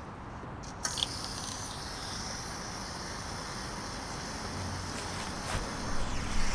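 Fresh water running from a hose into a truck camper's tank: a steady hiss that starts suddenly about a second in, after a couple of clicks. A few handling thumps come near the end.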